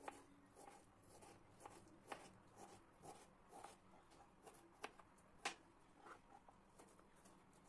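Faint, irregular taps of a small kitchen knife on a plastic cutting board as tomatoes are finely diced, with two sharper knocks a little after the middle.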